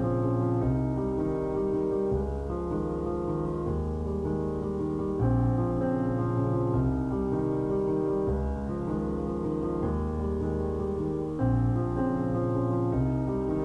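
Background piano music: slow, sustained chords, a new chord about every one and a half seconds.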